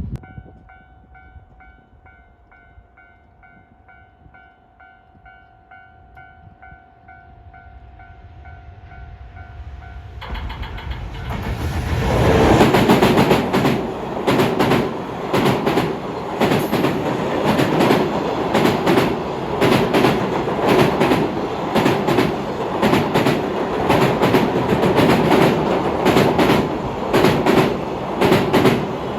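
A steady tone with overtones for the first ten seconds, then a train approaching and passing close by. Its wheels clatter rhythmically over the rail joints for the rest of the time, loud from about twelve seconds in.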